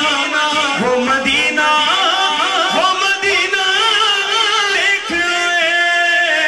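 A man singing an Urdu naat into a microphone, wordless ornamented runs that settle into a long held note about five seconds in.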